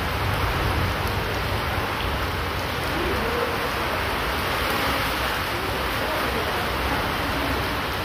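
Heavy rain pouring steadily onto wet paving, an even hiss that does not let up.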